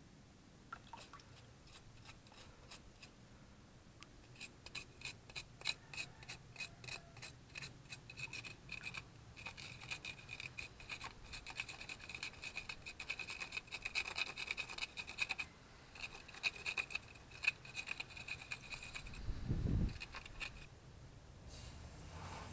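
A sea urchin's spines being scrubbed and scraped off with a small hand-held tool: a long run of rapid, scratchy strokes, with a low thud near the end.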